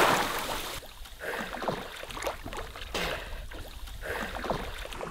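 Lake water churning and settling just after a person has jumped in, then small splashes and lapping around a swimmer treading water.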